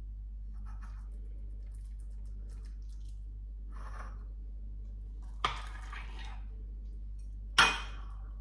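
Metal spoon working soft trifle on ceramic plates: faint wet squishes, then two sharp clinks of spoon on plate, about five and a half seconds in and near the end, the second louder. A steady low hum runs underneath.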